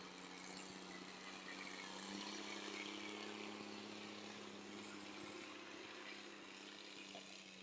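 A faint engine running steadily with a constant hum, slightly louder about two seconds in.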